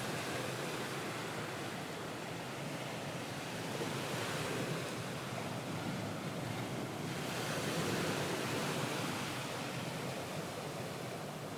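Ocean waves washing on a shore, a soft steady surf that swells and eases slowly, added as a background sound bed.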